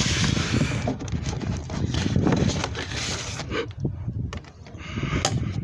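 Rustling and plastic knocks as a padded mailer is slid out of a plastic curbside mailbox, over a steady low rumble, with a sharp click near the end.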